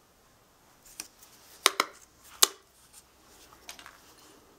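Several sharp clicks and taps of small hard craft tools being handled: a quick pair about a second and a half in, a louder single click just after, and fainter ticks near the end.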